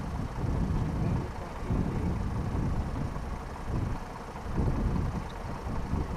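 Low rumbling wind noise buffeting the microphone, swelling and easing in irregular gusts.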